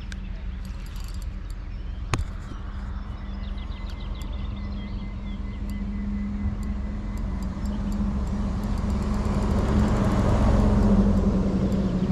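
A steady low engine hum, with a rush of noise that swells up from about two-thirds in, peaks near the end and starts to fade, as a motor vehicle passes. There is a single sharp click about two seconds in.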